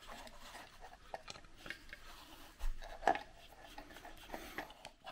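Screwdriver scraping and clicking against a plastic alarm-clock housing and its circuit board as the clock is taken apart, with a dull knock a little over two and a half seconds in and a sharp click just after three seconds.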